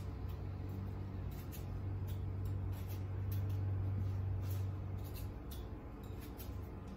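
Metal fork tines pricking the skin of a raw potato, a scatter of faint soft ticks, over a steady low hum.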